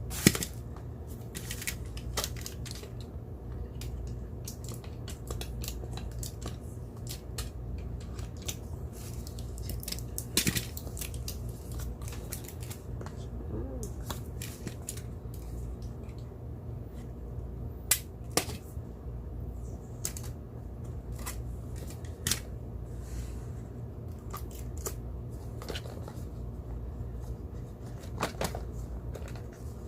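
Scattered clicks and snips of a product box being opened and its packaging handled, with a few sharper clicks, over a steady low hum.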